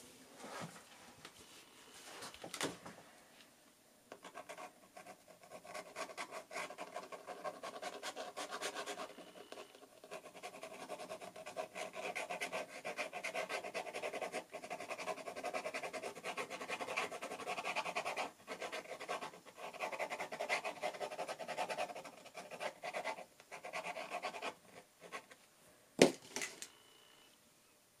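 Fountain pen nib scratching across watercolor paper in quick, continuous sketching strokes, starting about four seconds in and stopping shortly before the end. A sharp click follows near the end.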